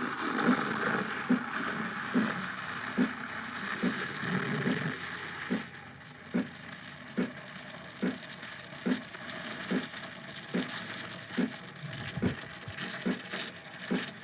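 Steam hissing from the panarello steam wand of an Ascaso Basic thermoblock espresso machine while it steams milk, with a regular low pulse a little faster than once a second. The hiss eases down after about six seconds.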